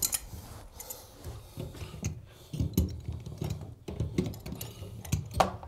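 Two adjustable wrenches working a chrome compression shutoff valve: scattered metal clicks, knocks and scrapes as the compression nut is tightened, crushing the brass ferrule onto the copper pipe for a watertight seal.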